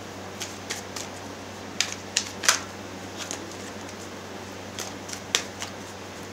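Tarot deck being shuffled by hand: a dozen or so crisp, irregularly spaced card clicks and snaps, over a faint steady low hum.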